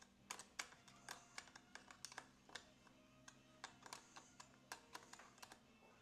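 Faint, irregular small metal clicks and taps, several a second, as an 8 mm wrench works the brake hose fitting loose at a Shimano road brake lever.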